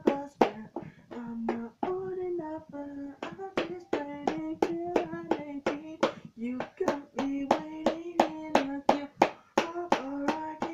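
Hand drumming: hands slapping out a quick beat on a surface, about four or five hits a second, while a male voice hums the song's tune in held notes without words.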